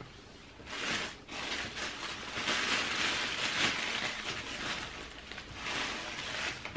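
Tissue paper rustling and crinkling in uneven surges as a pair of trainers is unwrapped from its shoebox.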